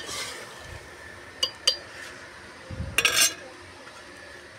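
Metal spoon clinking and scraping against a metal cooking pot while a curry is stirred: two sharp clinks about a second and a half in, then a short scrape about three seconds in.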